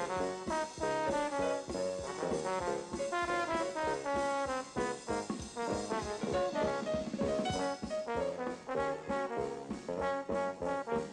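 Lively jazzy brass music score, a string of quick short notes over a steady bouncing beat.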